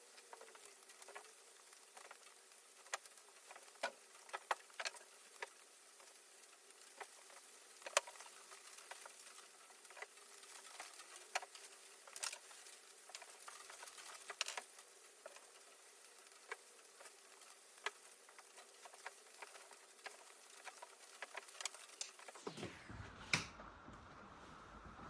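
Paint roller rolling paint onto a plywood panel: a faint, irregular sticky crackle with scattered sharp ticks.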